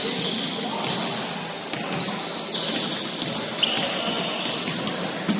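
Basketball game on a hardwood gym floor: sneakers squeaking in short high-pitched chirps and a ball bouncing, echoing in a large hall, with a sharp thud near the end.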